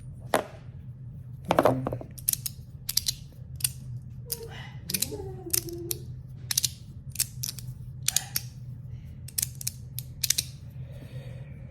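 Resin magnetic fidget slider being slid back and forth, its plates snapping into place with sharp clicks at an irregular pace, many in a row. A short hummed voice sound comes in a little before the middle.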